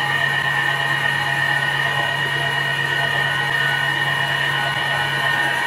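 CNC wood turning lathe running, spinning a 155 mm wooden post blank at 517 rpm while its cutter head works the wood: a steady machine whine with a few constant high tones over a noisy wash.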